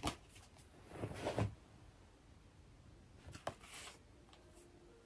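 Soft rustling and handling of tarot cards, in a few short spells: a brief one at the start, a longer one about a second in, and another near three and a half seconds.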